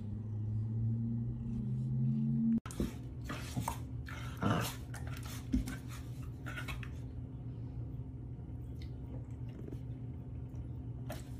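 A steady low hum that cuts off suddenly about two and a half seconds in. Then a dog's low, steady growl while it plays with a cat, broken by a few short sharp sounds.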